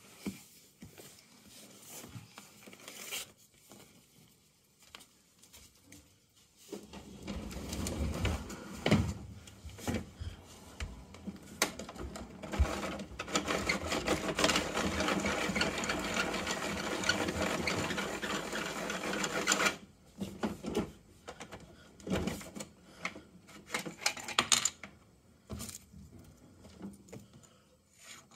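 Large plastic toy side-loader garbage truck pushed along a hardwood floor, its wheels giving a steady rattling whir for about twelve seconds from about seven seconds in. Light clicks and knocks of toys being handled before and after.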